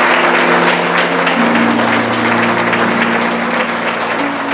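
Audience applauding, many hands clapping at once.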